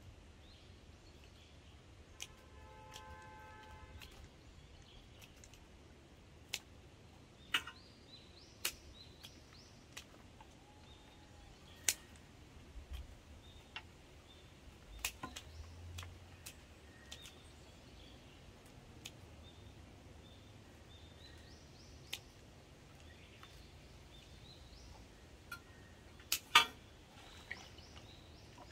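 Large scissors snipping hydrangea stems into cuttings: single sharp snips at irregular intervals, often a second or two apart with longer gaps, the loudest near the end.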